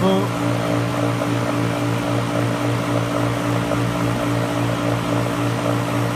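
A steady low mechanical hum with a light, even pulse, from a running machine.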